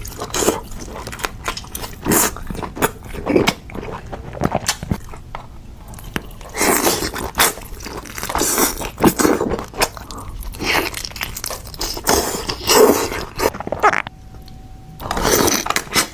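Close-miked eating of a seafood boil: irregular bites, crunches and chewing, with a brief lull near the end.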